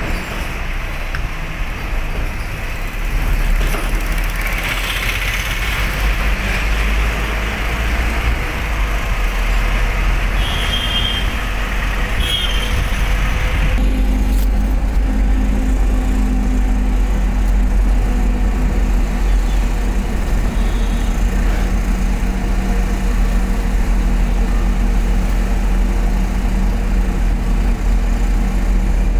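Road and engine noise inside a moving car: a steady low rumble with tyre hiss, settling into a steadier hum about halfway through.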